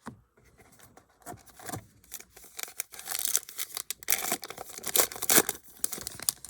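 A baseball card pack's wrapper is being torn open and crinkled by hand. The crackling starts sparse, then gets dense and loud through the second half.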